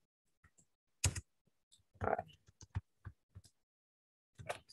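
Computer keyboard keystrokes in a few short, irregular clusters, as text is typed and deleted, with silence between them.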